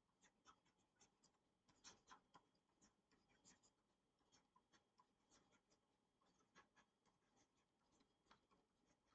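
Near silence with faint, irregular scratches and ticks of a stylus writing on a tablet.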